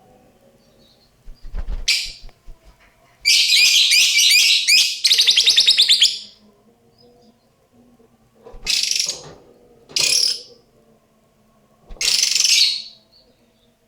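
Female lovebird calling in harsh, high-pitched bursts: a long run of rapid repeated chattering notes from about three to six seconds in, then three shorter screeches. This is her unusual, unclear call, which the owner says does not sound like a typical lovebird's chattering song.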